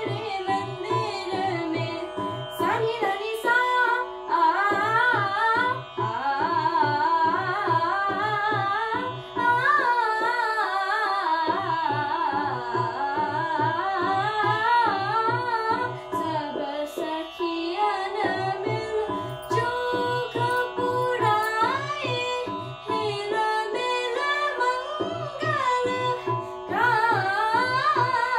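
A young female voice singing an Indian classical raga, with gliding, ornamented melodic lines, over the steady drone of an electronic tanpura and a regular low beat from an electronic tabla box. The beat pauses briefly a few times.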